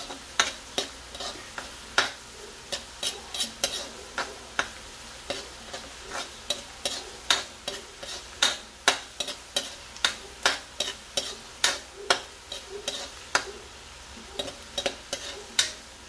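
A long-handled metal spoon clinking and scraping against a metal wok as ground beef and onions are stirred, a few sharp strikes a second in an irregular rhythm. Under it is a faint sizzle of the meat and onions sautéing in butter.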